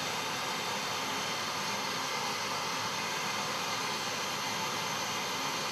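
Steady white-noise hiss from a white-noise generator played through a loudspeaker, the test signal used to tune a smartphone's microphone equalizer.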